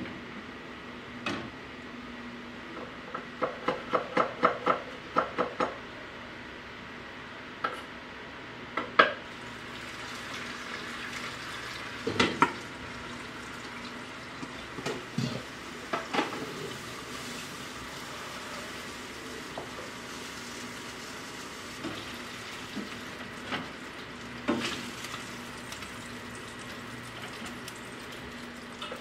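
Whole tilapia frying in oil in a pan, a steady sizzle, with a spatula knocking and clinking against the pan and wire rack. A quick run of light clicks comes near the start.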